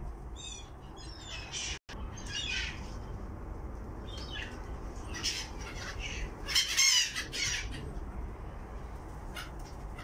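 Black-headed gulls squawking repeatedly as they flock around hand-held bread, with a loud burst of overlapping calls about seven seconds in.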